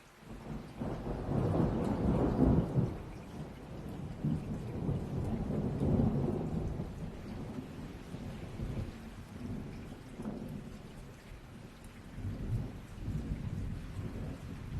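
Thunder rolling over steady rain. The rumble comes in suddenly at the start, is loudest about two seconds in and swells again around six seconds, then fades to a lower grumble.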